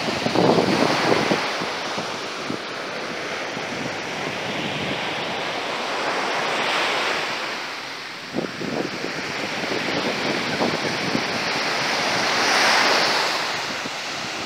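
Small sea waves washing onto a sandy beach, with wind rumbling on the microphone. The wash swells about seven seconds in and again near the end.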